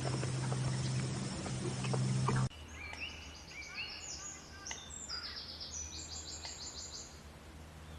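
Loud outdoor noise with a steady low hum and scattered clicks, cut off abruptly about two and a half seconds in. A quick flurry of high, short bird chirps and rapid rising and falling notes follows, fading out near the end.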